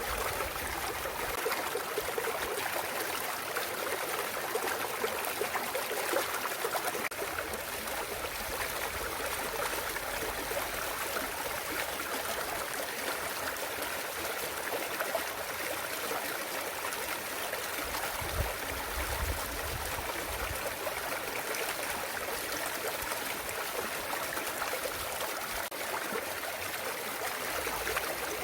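Clear mountain stream babbling and trickling steadily over rocks, a continuous gurgling water sound, with a brief low rumble around the middle.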